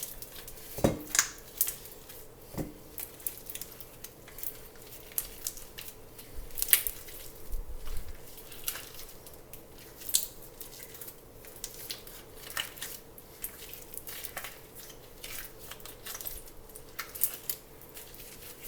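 Gloved hands kneading and squishing homemade glue slime (school glue, baking soda and contact solution), giving irregular sticky crackling and squelching as the mixture begins to set into slime. Two soft knocks come in the first few seconds.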